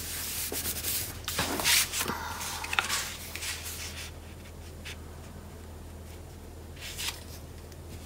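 Hands sliding and rubbing sheets of patterned scrapbook cardstock across a cutting mat, smoothing them flat. The rubbing comes in several short strokes over the first half, mostly stops, and returns once briefly near the end.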